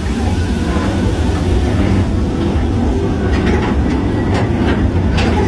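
Mine-train ride cars rolling along their track: a steady low rumble, with a handful of sharp clacks in the second half.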